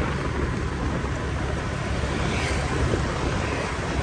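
Steady wind rush over the microphone together with the low hum of a motorbike engine and tyre noise, heard from a moving scooter.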